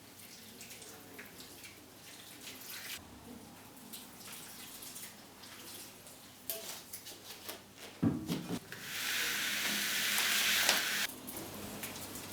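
Kitchen tap running for about two seconds and then shut off abruptly, after a dull knock. Small clicks and knocks of handling things come before it.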